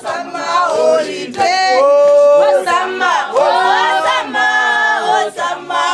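A mixed group of men and women singing together a cappella, several voices at once with no instruments, including a long held note about two seconds in.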